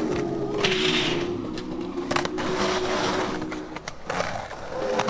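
Skateboard riding on pavement: wheels rolling, a brief scrape about half a second in, and several sharp clacks of the board. Background music with long held notes plays underneath.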